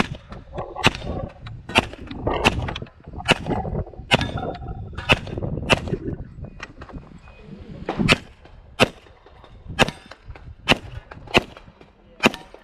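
A string of about fifteen pistol shots from an HPS/STI 2011 in .40 S&W, fired at an uneven pace, mostly under a second apart, as a course of fire is shot.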